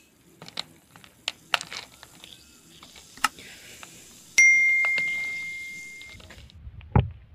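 Metal spoon clinking against a glass mug as it stirs the drink, then a single loud bell ding, a notification sound effect, ringing out for about two seconds. A dull thump near the end.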